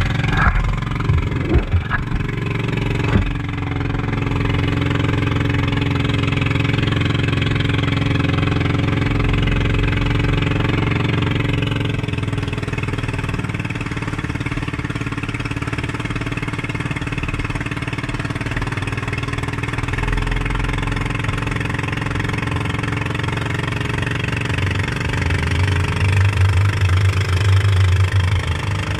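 Engine of a motorized outrigger boat (bangka) running steadily at speed, with water rushing along the hull. A few sharp knocks in the first three seconds, and the engine note grows louder and deeper near the end.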